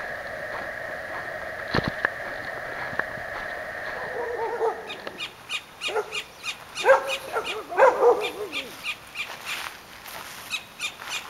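Dog whining, then giving a series of rising and falling yelping cries about halfway through.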